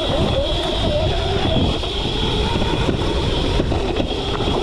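Modified Razor MX650 electric dirt bike with an 11,000-watt brushless motor being ridden: the motor's whine wavers up and down in pitch with the throttle over a steady high whine and a low rumble.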